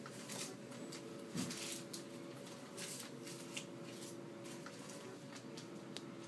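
Rustling and soft handling noises close to the microphone, over a faint steady hum. A faint steady tone sounds for over a second at a time and repeats about every two seconds.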